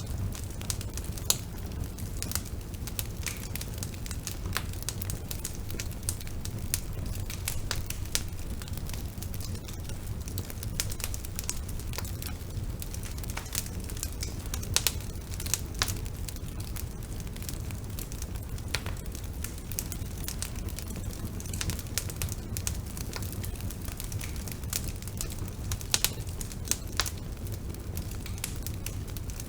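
Bonfire burning: a steady low rumble of flames with irregular crackles and occasional sharper pops of burning wood.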